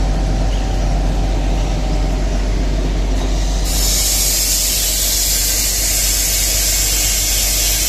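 Narrow-gauge Kalka–Shimla toy train running: a loud, steady rumble of the carriages on the rails, with a strong hiss coming in about halfway through.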